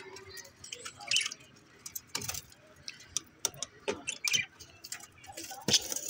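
Budgerigars in an aviary making scattered short, high chirps, among irregular sharp clicks and light rattles.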